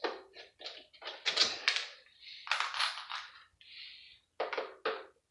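Parts of a PlayStation 3 console being handled during dismantling: a run of sharp taps, clicks and clinks of hard plastic and metal, with a short scraping rattle about halfway through.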